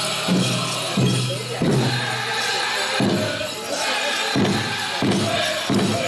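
Powwow drum group singing a chicken dance song: voices in unison over a steady beat on the big drum, about one and a half beats a second.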